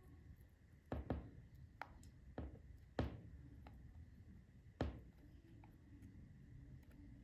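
Small hand tool clicking and tapping against the casing of an opened reMarkable 2 tablet while working at a panel, several irregular sharp clicks, the loudest about three seconds in and another near five seconds.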